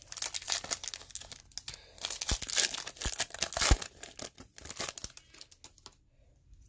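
Foil wrapper of a football trading-card pack being torn open and crinkled, with a few dull knocks around the middle; the crackling dies down near the end.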